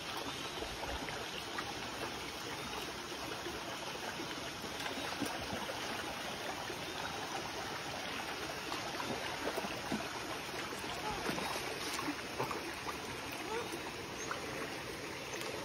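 Shallow runoff water flowing steadily through a flooded puddle, a continuous even rush of moving water, fast enough to carry a swimming beaver kit downstream.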